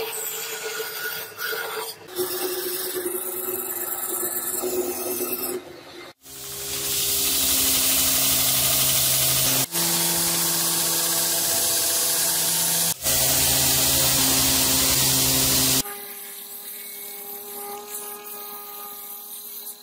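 A band saw cutting a steel knife blank made from a bearing, then a belt grinder grinding the blank: a loud, steady abrasive hiss over the motor's hum, broken twice by cuts. Near the end comes a quieter belt sander running against the steel.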